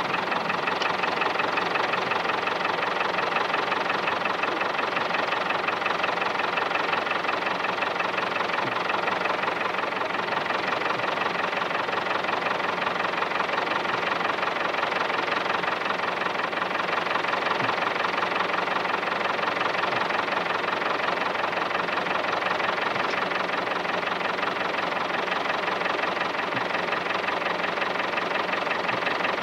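Farm tractor engine idling steadily as it stands in the hay field.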